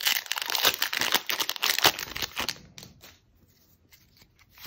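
Foil wrapper of a Pokémon trading card booster pack torn open and crinkled by hand, a dense crackling that dies away about three seconds in, leaving a few faint clicks.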